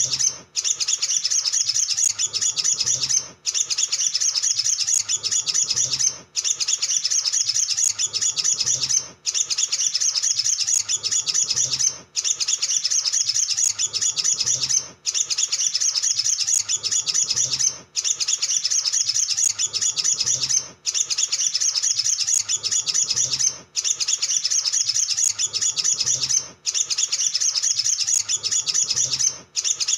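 Olive-backed sunbird singing a fast, continuous stream of high twittering chirps and trills, broken by a brief pause about every three seconds.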